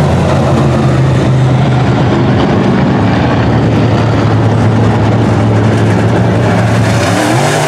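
Semi-late model dirt-track race cars' V8 engines running hard as they lap the track: a loud, steady engine drone.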